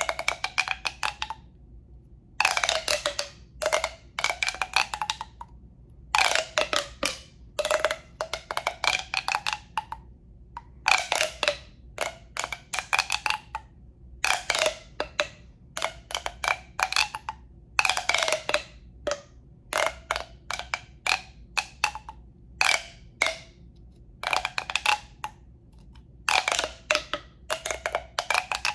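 Runs of quick taps on a tube, each run ringing with a pitched tone that rises slightly, repeating every second or two.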